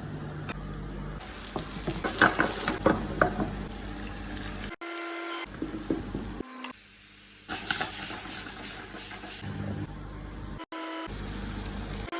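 Food sizzling and crackling in a frying pan, with a burst of pops about two to three seconds in. The sound changes abruptly several times, as edited clips cut from one to the next.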